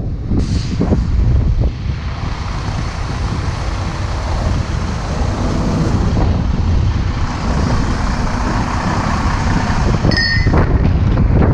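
Heavy wrecker's diesel engine running steadily beside the semi, with wind buffeting the microphone. A brief high-pitched beep sounds near the end.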